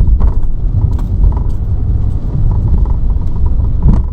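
Inside a VW T6.1 van driving over a bumpy, potholed road: a heavy low rumble of tyres and suspension, with scattered short knocks and clicks through it.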